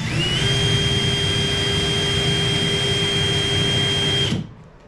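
Electric drill spinning up with a rising whine, then running at a steady pitch for about four seconds before stopping. The bit is turning in reverse against the wood to dimple the surface so it does not walk when the hole is started.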